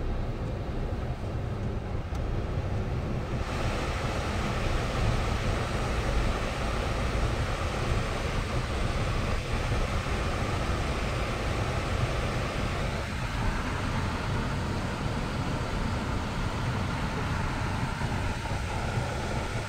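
Steady in-cabin driving noise of a Jeep Wrangler JK moving over snow-covered roads: a deep engine and tyre rumble with a hiss over it. The hiss grows brighter about three and a half seconds in.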